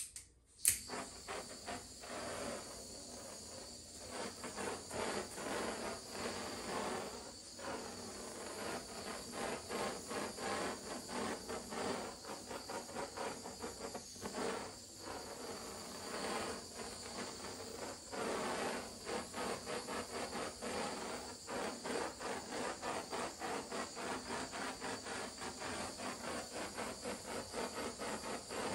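Small handheld heat tool running with a steady hiss and a rapid flutter while it is passed over freshly poured epoxy resin. It switches on with a sharp click just under a second in.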